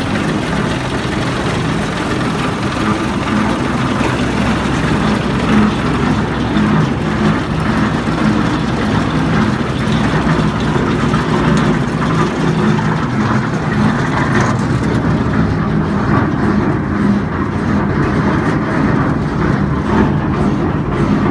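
Tractor diesel engine running steadily at a constant speed, driving a double-worm pugmill through its PTO shaft and belt drive, with the machine's twin augers turning empty.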